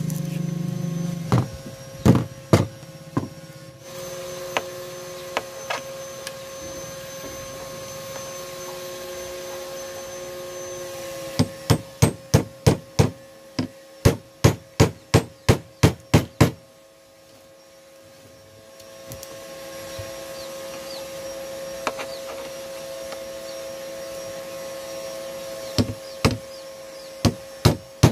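Hammer tapping on a metal pin at an angle grinder's gear head: sharp metal strikes, a few scattered at first, then a quick run of about three a second around the middle and another run near the end, over a steady low hum.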